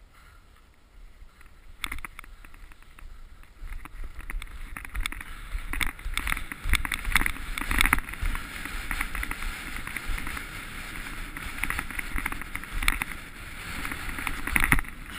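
Skis sliding and scraping over packed snow on a fast descent, a hissing swish with irregular harder scrapes, starting about two seconds in and getting louder, with wind rumbling on the camera's microphone.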